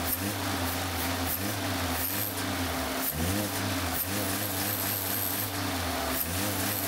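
Toyota 1SZ-FE 1.0-litre four-cylinder engine idling unevenly, its note sagging and then picking back up about every three seconds. It is missing, which is put down to a sensor connector on the air filter box left unplugged, and the idle is set a little low.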